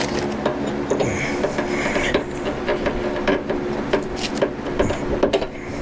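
Scraping, rubbing and irregular clicks and knocks of metal lifting handles being worked into the slots of a planer's shroud, over a steady hum.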